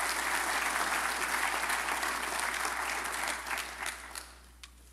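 Audience applauding, a dense steady clapping that dies away about four seconds in.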